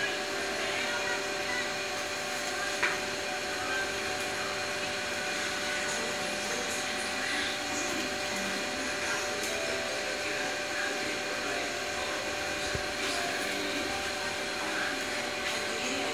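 SEAP CP 5000 digital production press running and feeding printed sheets out into its output tray: a steady mechanical hum and whir with a few faint clicks, the sharpest about three seconds in.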